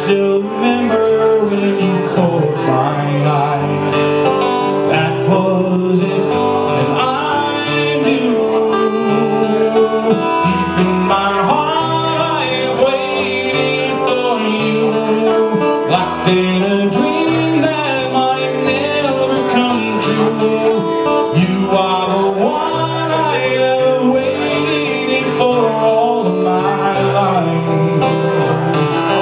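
A man singing while strumming an acoustic guitar, a live solo performance.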